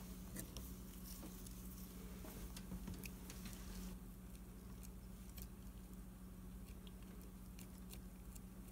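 Faint scattered small clicks and rubbing as gloved fingers work the new rubber seats and springs into a single-handle kitchen faucet's valve body and dab silicone grease on them, over a steady low hum.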